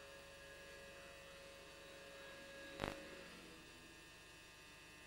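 Faint steady electrical hum with hiss, and a single sharp click a little under three seconds in.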